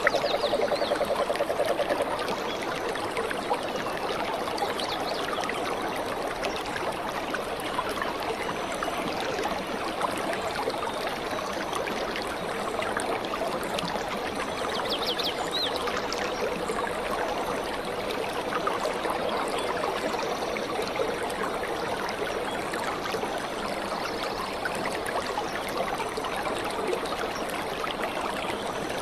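Shallow stream running and trickling over rocks, a steady rush of water. A rough buzzing sound stands above it for about the first two seconds, then stops.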